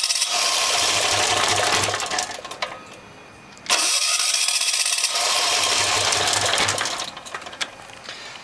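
ETQ diesel engine being cranked twice without catching: a spell of cranking of about two and a half seconds, a pause of about a second, then a second spell of about three seconds. The engine fails to start, which the owner suspects comes from it not getting heat (glow plug).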